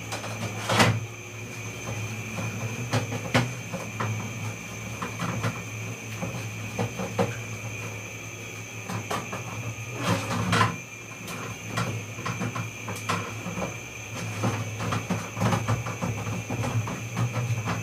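Plastic parts of an air-conditioner's indoor unit being handled and wiped: irregular clicks, taps and knocks, the sharpest about a second in, around three seconds in and around ten seconds in, over a steady hum.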